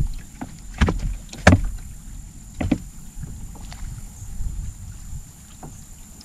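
A few sharp knocks and taps against the boat, the loudest about a second and a half in, over a low rumble of wind and water. A faint steady high whine runs underneath.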